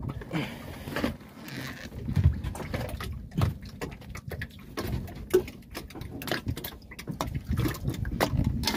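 Irregular clicks, knocks and rustling as a freshly caught fish is handled and unhooked on a wooden outrigger boat, over a constant low rumble.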